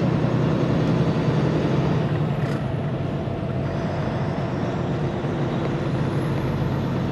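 Semi-truck diesel engine running steadily under way, heard from inside the cab as a low drone with road noise.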